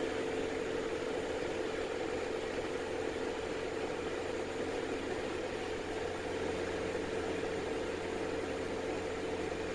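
Diamond DA40's engine and propeller droning steadily in the cockpit, an even hum with a constant pitch.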